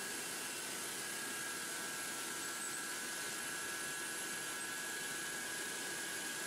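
Steady machinery hum and hiss of a running steel tube mill's roll-forming line, with a constant high whine over it.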